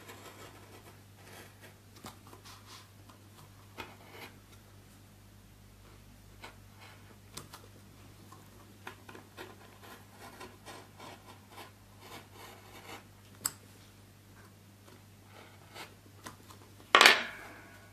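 Craft knife blade drawn through extra-thick card on a cutting mat, a second pass to cut all the way through: faint, irregular scratching strokes, with one much louder scratch near the end.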